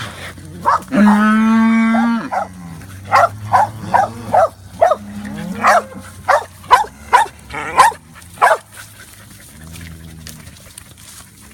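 Cattle mooing: one long, loud moo about a second in, with lower, fainter moos later. Between about three and eight and a half seconds a working dog gives about a dozen short, sharp barks in quick succession.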